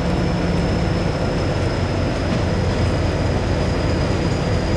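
Kalka–Shimla narrow-gauge toy train running, a steady low rumble of the moving carriage with a faint steady high whine.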